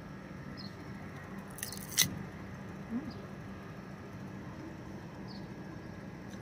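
A person biting into a crisp slice of green mango, with one crunching bite about two seconds in, then chewing, over a steady low background hum.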